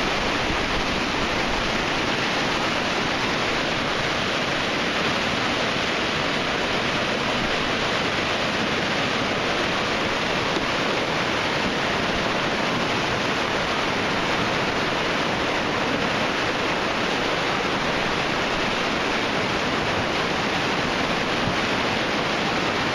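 Muddy flash-flood water rushing and churning down a sandstone creek bed, a steady, unbroken rush of turbulent water. The normally calm creek has been turned into a torrent by a thunderstorm upstream.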